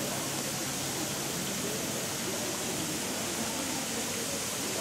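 Sprinkler installation spraying water in a steady hiss, with a faint murmur of voices underneath.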